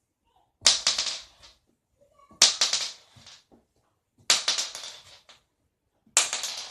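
A .410 shotgun shell landing after being flipped, four times about two seconds apart: each landing is a sharp hit followed by a short clatter as the shell knocks about on the surface, attempts that fail to stay upright.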